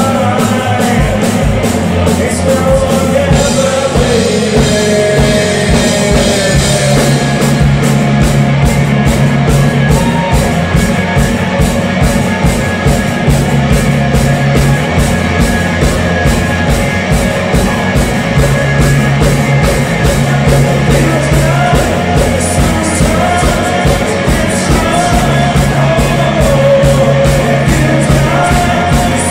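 Live rock band playing, with drums keeping a steady beat under held bass notes, and a sung melody over it at the start and again near the end.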